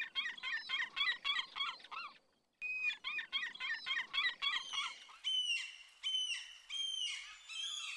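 Gulls calling: two runs of quick yelping notes, about four a second, then a series of longer calls that each slur downward.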